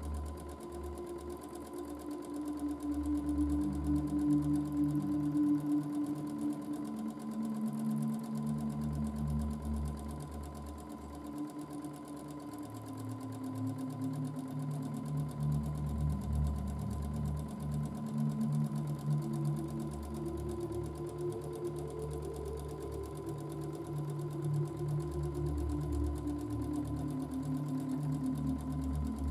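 Domestic sewing machine running continuously while free-motion quilting, its pitch drifting up and down as the stitching speed changes.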